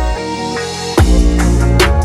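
Electronic background music with a heavy bass line and sharp drum hits.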